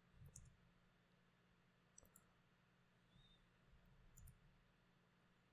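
Near silence with a few faint computer mouse clicks: one about a third of a second in, a quick pair about two seconds in, and one more near the end.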